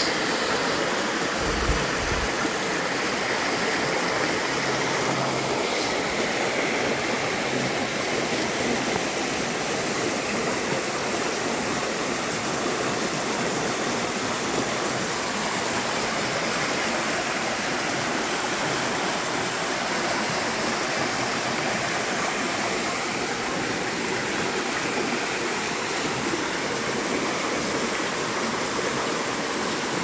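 Rain-swollen stream running fast over a small cascade: a steady rush of water.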